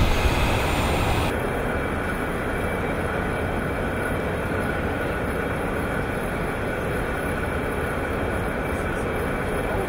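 Steady mechanical drone of a MAN bucket-wheel excavator running, with a faint steady whine over it; about a second in the high hiss drops away and the drone carries on unchanged.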